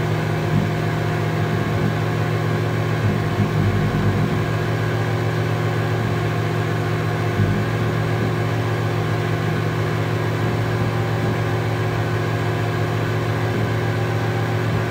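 Homemade light-responsive oscillator synthesiser (OSC^n) holding a steady, buzzing electronic drone of many stacked tones, heaviest in the low range, with a few brief crackles a few seconds in.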